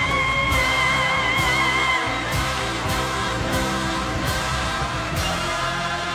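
Live pop song with band and voices: a very high sung note with strong vibrato is held for about the first two seconds, then the band carries on with a steady drum beat.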